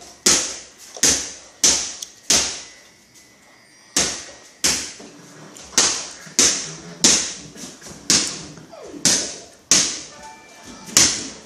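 A ball bouncing over and over on a hard tile floor as it is dribbled, each bounce sharp with a short ringing echo, roughly one to two bounces a second, pausing briefly about three seconds in.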